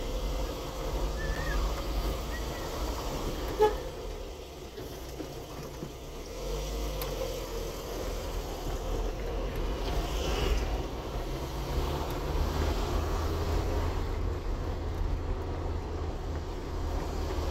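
Car driving slowly, with a steady low engine and tyre rumble. A short, sharp beep sounds about three and a half seconds in.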